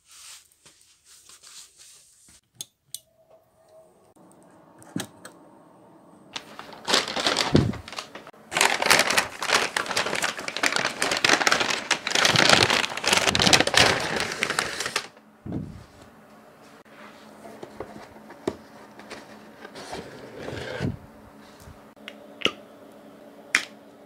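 Paper bag rustling and crinkling loudly as it is handled and opened, for about eight seconds starting about a quarter of the way in. Softer handling noises and a few sharp clicks follow.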